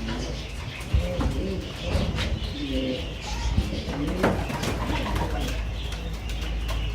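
Domestic pigeons cooing, several low calls overlapping one another, with a few sharp knocks among them.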